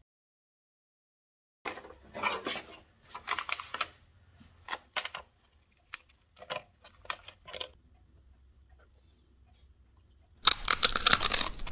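After a brief silence, a thin, crisp chickpea-flour and seed cracker is snapped apart by hand, giving a series of dry cracks and crackles. Near the end comes a loud crunch as a cracker is bitten.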